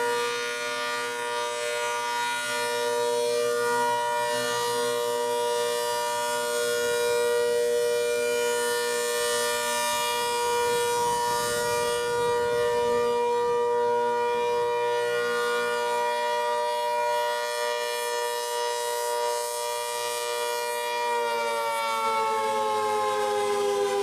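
ACA Hurricane 130 MKII outdoor warning siren sounding a steady tone on test, its horn rotating so the loudness swells gently. About 21 seconds in, the pitch starts to fall as the siren winds down.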